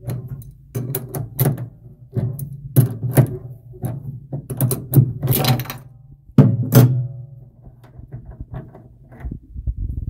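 Adjustable wrench clanking and scraping on the brass cartridge nut of a faucet as the cartridge is unscrewed and pulled out. There is a rapid run of sharp metallic clicks and knocks, some ringing briefly, that thins out after about seven seconds.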